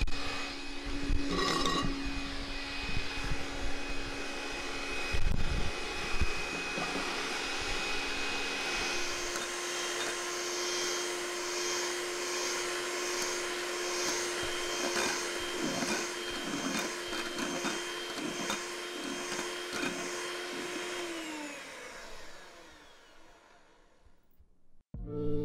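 Electric mixer running steadily, its beaters whipping dalgona coffee into a thick foam. About nine seconds in the motor's pitch steps up. Near the end the motor is switched off, its pitch falling as it winds down.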